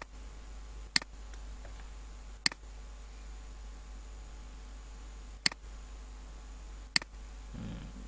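Computer mouse clicked five times at uneven intervals of one to three seconds, each a sharp single click, over a steady low electrical hum: the clicks set anchor points while tracing a path with the Pen tool.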